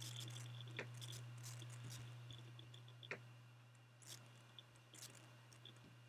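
Near silence: room tone with a steady low hum and a few faint clicks.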